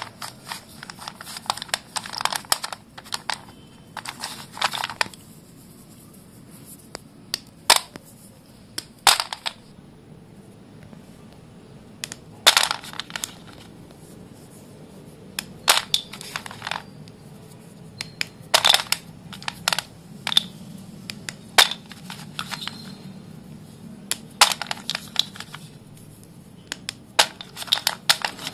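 Sticks of white dustless school chalk being crushed and broken, in short crunchy cracks and crumbles that come in clusters every second or few, with quieter gaps between.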